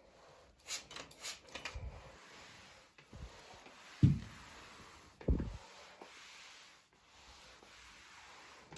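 Household handling noises: brief rubbing and scraping, then a few dull thumps, the loudest about four seconds in.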